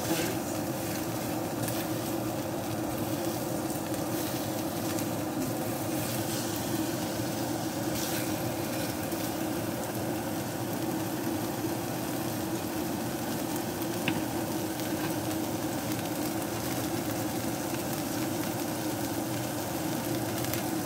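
Chicken pieces sizzling steadily as they fry in oil in a stainless steel pan, with a steady low hum beneath. A few light scrapes of a wooden spoon come in the first seconds, and there is one sharp click about midway.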